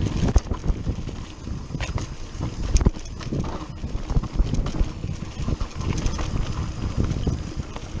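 Mountain bike rolling fast down a rough dirt trail: tyres crunching over loose dirt and stones, with the bike rattling and knocking irregularly over the bumps and one hard knock a little under three seconds in.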